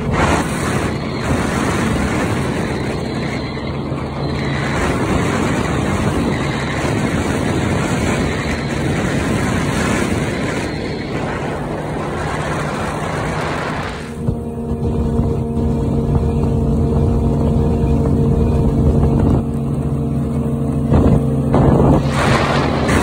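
85 hp Yamaha outboard motor on a small speed boat, running steadily at high speed. For the first half a loud rushing noise covers the engine; about fourteen seconds in the rushing drops away and the engine's steady tone comes through clearly.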